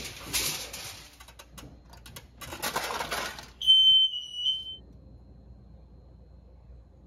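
Aluminum foil crinkling and rustling as it is pressed over a pan, with a few sharp clicks. About three and a half seconds in, a kitchen appliance gives a loud electronic beep: one long high tone, then a short one.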